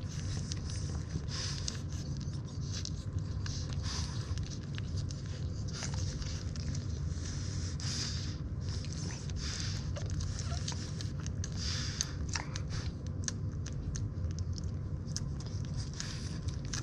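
Newborn French Bulldog puppies suckling at their mother's teats, making irregular wet smacking and clicking sounds that come thickest in the second half, over a steady low hum.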